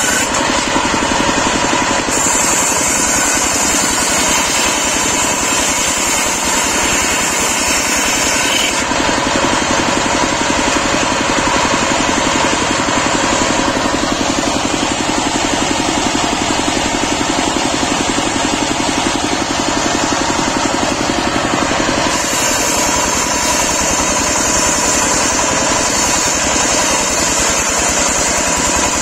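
Horizontal single-cylinder diesel engine running steadily with a fast, even beat, belt-driving a circular saw bench.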